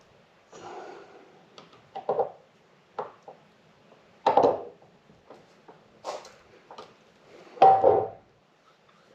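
Short clicks and knocks of small parts and tools being handled while a motorcycle fuel petcock is reassembled, with the loudest knocks about four seconds in and near the end.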